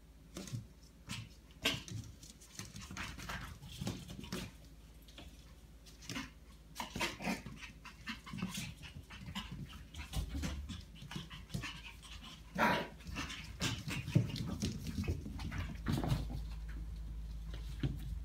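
West Highland white terrier puppies playing, with many short barks and whimpers coming at uneven intervals.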